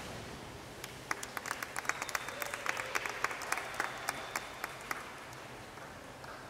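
Two synchronized divers entering the pool with a splash at the start, followed by spectators clapping: scattered individual claps for about four seconds, dying away near the end.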